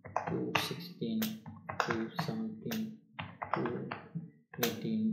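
A man's voice speaking, with computer keyboard keys clicking.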